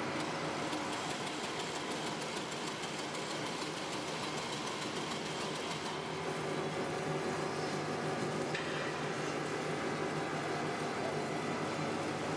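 Synthetic plastic string (sutli) making machine running: a steady mechanical hum and whir of its motors and rollers as the slit plastic tape runs through.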